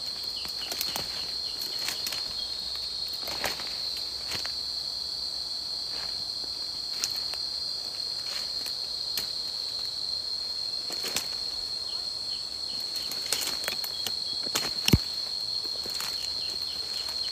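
Footsteps crunching irregularly through dry leaf litter, over a steady high-pitched drone of insects. One sharper crack or snap comes near the end.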